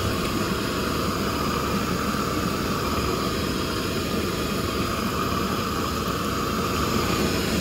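Long-wand propane torch burning with a steady, even hiss of gas and flame that does not change.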